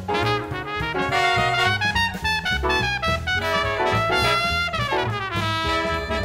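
Small modern jazz ensemble playing an angular serial piece: trumpet and trombone lines to the fore with saxophones, over piano, bass and drums, the notes changing quickly with no pause.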